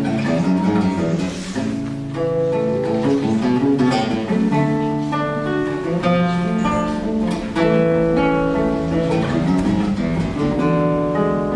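Acoustic guitar playing, with several notes sounding together and changing every second or so.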